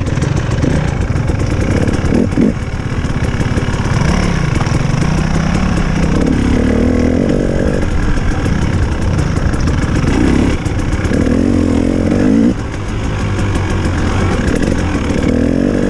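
Dirt bike engine running on the move, revving up in several bursts as the throttle is opened and eased off, over a steady noisy hiss.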